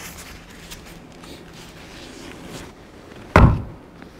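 A single heavy sledgehammer blow on a wooden block held against a cedar log, about three seconds in, after low shuffling and handling noise. The strike is meant to jar the log frame so the cornice settles down onto its loosened jack.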